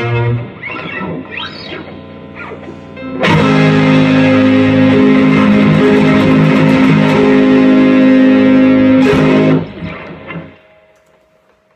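Electric guitar played through an amplifier: a few quieter notes sliding up and down in pitch, then about three seconds in a loud chord struck and held for about six seconds before it is cut short and rings away to near silence.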